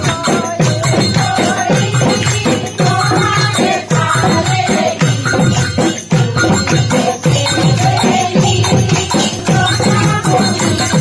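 Bihu folk music with a steady drumbeat of about two strokes a second and jingling, shaken percussion over a melody.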